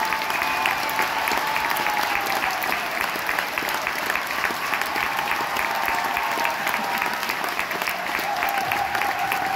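Concert hall audience applauding steadily, a dense patter of many hands clapping, with a few voices calling out under it.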